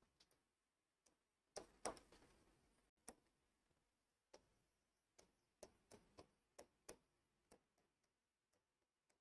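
Near silence broken by faint, irregularly spaced clicks and taps of a pen on an interactive board's screen during handwriting, about a dozen of them.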